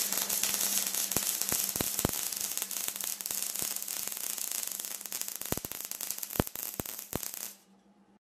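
MIG welding arc crackling and hissing with sharp pops of spatter, running a vertical weld bead on steel. A steady low hum sits under it. The arc cuts off near the end.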